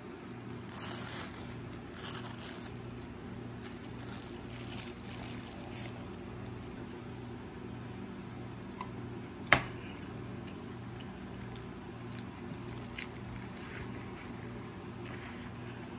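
Close-up eating of a wrapped sandwich: soft bites, chewing and crinkles of the wrapping, over a steady low hum from a small electric fan. A single sharp knock comes about nine and a half seconds in.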